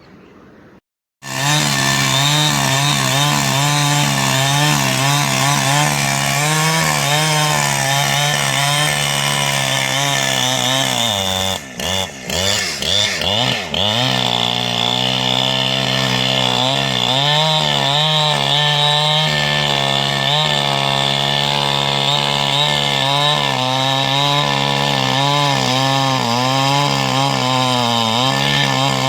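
Greencut GS750X 75cc two-stroke chainsaw running at high speed, starting abruptly about a second in. Its note wavers throughout and, about halfway through, sags and dips for a couple of seconds before recovering.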